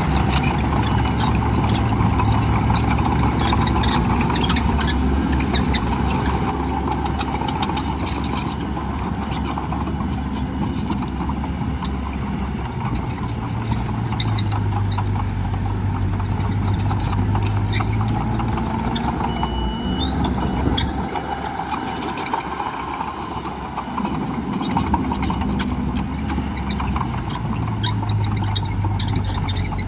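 Heavy diesel earthmoving machinery running, its engine note shifting up and down several times as the load changes. It eases off for a few seconds about two-thirds of the way through, then picks up again.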